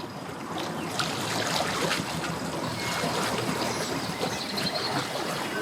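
Water sloshing and trickling in a steady noisy wash, with a few small clicks.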